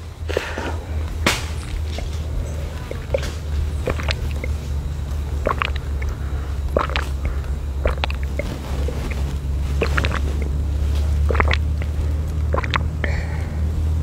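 A person drinking coconut water straight from an opened jelly coconut: scattered short gulps, sips and mouth smacks every second or so, over a steady low rumble.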